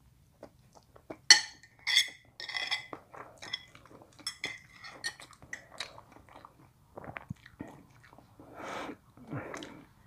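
Metal spoon and fork clinking and scraping against ceramic plates, a series of sharp ringing clinks over the first six seconds, mixed with close-up chewing.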